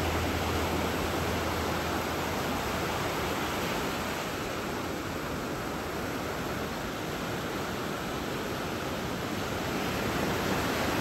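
Ocean surf: waves breaking and washing in as a steady rushing roar.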